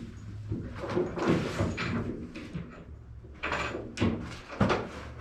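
Scraping and clunking of pool table parts and bolts being handled during assembly, with two sharp knocks about four seconds in.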